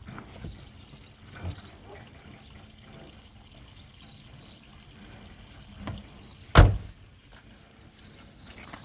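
Water trickling with a few light knocks, and one loud thump about six and a half seconds in.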